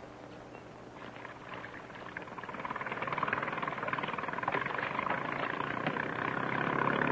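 Motorboat engine running, faint at first and growing louder from about two seconds in to a steady drone.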